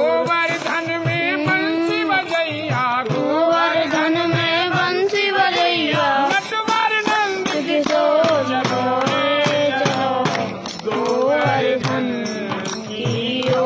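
A group of men singing a Hindu devotional bhajan, kept in time by hand clapping and a jingling frame tambourine.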